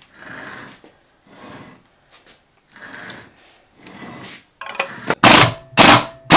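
Tools working on a stripped Honda engine: soft scraping or rubbing strokes about once a second, then four loud metal bangs with a short ring, about half a second apart, from about five seconds in.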